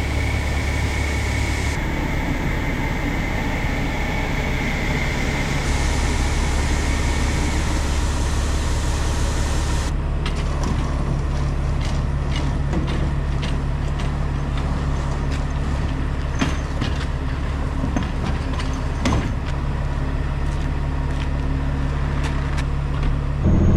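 Truck engine running steadily with road noise. The sound changes abruptly a few times, with scattered light ticks in the second half.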